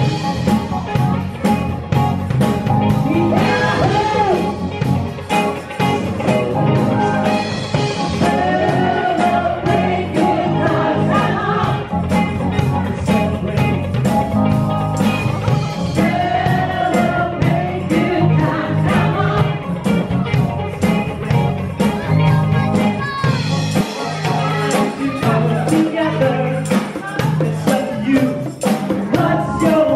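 Live band playing a song: singing over drums and guitars with a steady beat.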